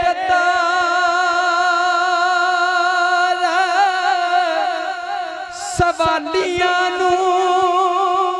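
A male naat reciter singing long, drawn-out notes with vibrato into a microphone, a Punjabi devotional kalam in praise of the Prophet. The note breaks briefly a little past halfway with a short hiss and a knock, then he holds the next note.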